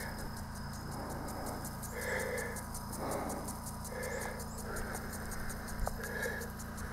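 Faint, quick, even ticking from a running lawn sprinkler, with short chirps repeating every second or two.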